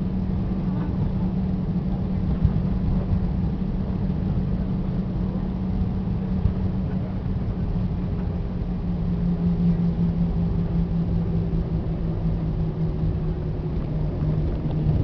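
Airliner engines droning steadily, with a low hum that drops slightly in pitch about nine seconds in.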